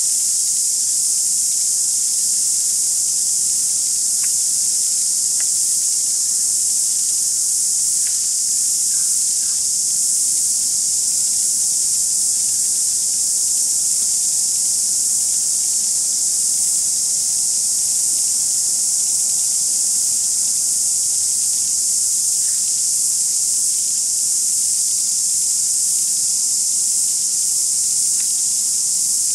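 A steady, high-pitched insect chorus, shrill and unchanging, with a few faint ticks.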